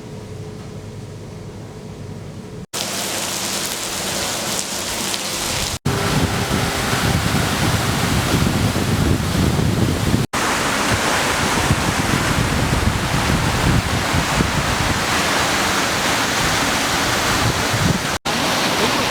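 Heavy rain and rushing runoff water, a dense steady hiss across several cut-together shots, louder in each shot after the first. The first few seconds are quieter, with a low rumble and a faint steady tone under the rain.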